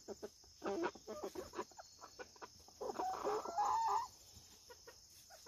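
Backyard chickens making soft clucks and brief calls among short clicks, then one longer wavering call about three seconds in.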